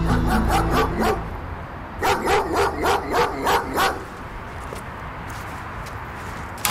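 A dog barking in two runs of quick, repeated barks, the first at the start and a louder one from about two to four seconds in. A single sharp thud comes at the very end.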